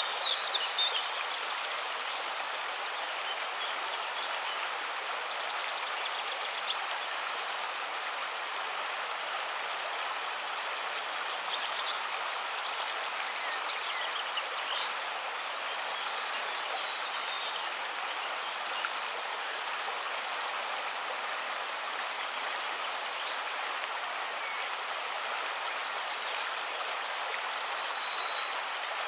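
River water flowing steadily, with small birds calling now and then above it and a louder run of birdsong near the end.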